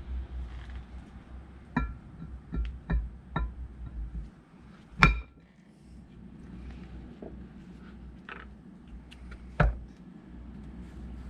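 Metal parts and tools being handled: a series of sharp metal clanks, some with a brief ringing tone, the loudest about five seconds in and another near the end, over a low rumble that fades about four seconds in.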